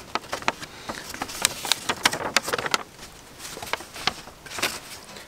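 A sheet of paper being folded and creased by hand, giving a run of crisp rustles and crackles.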